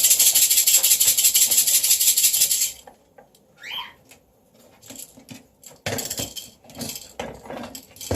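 A Moluccan cockatoo shaking a rattle toy hard and fast, a dense rattle that stops abruptly about three seconds in. Scattered knocks and clatter follow near the end.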